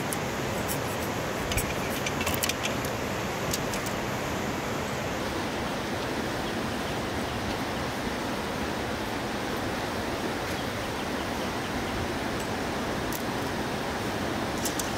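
River water rushing steadily. A few short scrapes and clicks come from a knife shaving bamboo strips, about two seconds in and again near the end.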